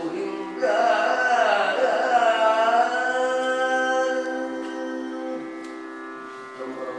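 Carnatic-style devotional music: a melodic line, likely a voice, holds a long wavering note over a steady drone. The melody starts about half a second in and fades after about three seconds, leaving the drone sounding on.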